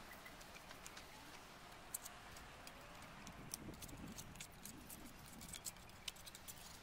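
Faint scattered ticks and clicks: a putty knife scraping and chipping caked soil off a steel spade blade.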